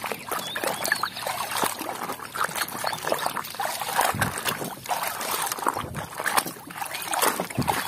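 Muddy water sloshing and splashing in a plastic tub as a hand scrubs a toy truck under the surface, in irregular wet splashes and drips.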